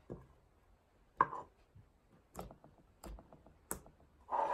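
Thick, glossy slime being turned out of a clear plastic tub and handled, giving a string of sharp sticky clicks and pops, the loudest about a second in, then a longer squishy burst near the end.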